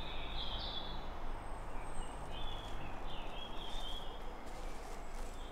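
Outdoor ambience: a steady background hiss with birds chirping faintly now and then. There are short high calls near the start and again about halfway through.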